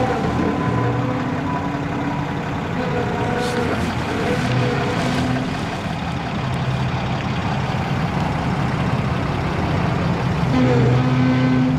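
Pickup truck engine running at low speed while the truck reverses slowly, a steady low drone.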